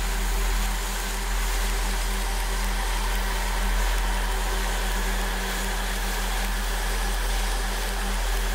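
Quadcopter's electric motors and propellers running steadily, a constant whine with noise over it, picked up by the camera on the aircraft.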